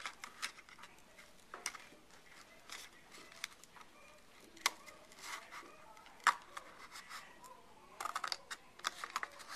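Scissors snipping through folded cardstock: irregular crisp snips, with a quick run of snips near the end.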